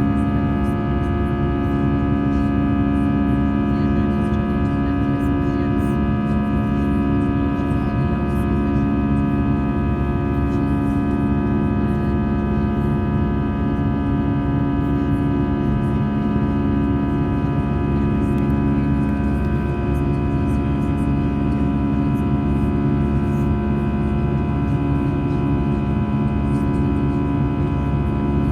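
Steady cabin drone inside an Airbus A320 after takeoff: jet engine and airflow noise with several steady humming tones.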